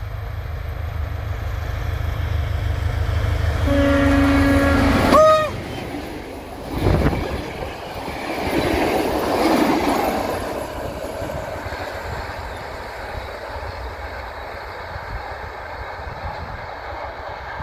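SP42 diesel locomotive's engine rumbling louder as it approaches, then a horn blast about four seconds in that ends on a brief higher note. A thud follows as it passes, then the passenger coaches rush by with wheel clatter that fades as the train moves away.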